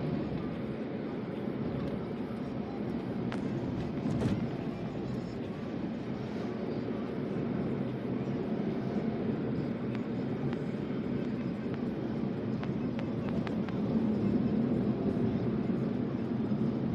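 Steady low rumble and hiss, with a couple of sharp clicks about three and four seconds in.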